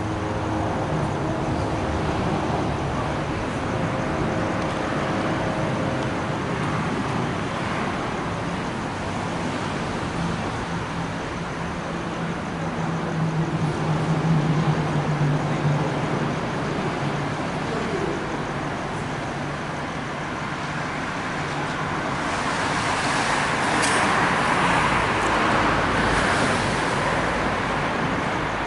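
Road traffic on a wet street: a steady hiss of passing vehicles, with an engine hum swelling in the middle and a louder vehicle pass near the end.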